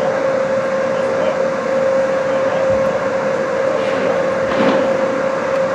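Steady mechanical drone of an indoor ice rink, with a constant hum running through it. About four and a half seconds in there is a short, louder rush of noise.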